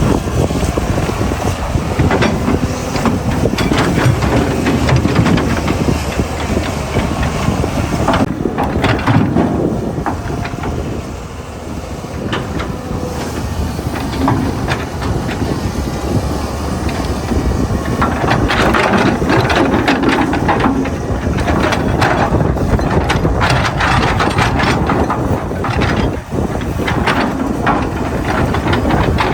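Excavator at work: its engine running under a steady hiss, with irregular knocks, clanks and scrapes throughout, busiest in the second half.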